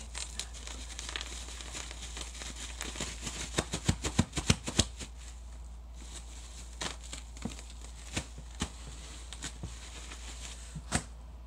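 Plastic bubble wrap being twisted and squeezed by hand: crinkling plastic with sharp pops of bursting bubbles. A rapid run of loud pops comes about four seconds in, then scattered single pops, one of the loudest near the end.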